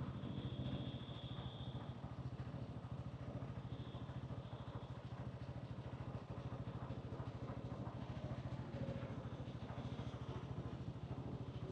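Hansom Bike Benet 125cc motorcycle engine and exhaust running steadily at an even, low pitch, with no revving.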